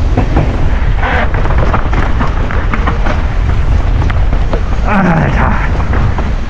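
Wind buffeting a GoPro microphone while a mountain bike rides down a trail, with the bike rattling and knocking throughout. A short voice sounds about five seconds in.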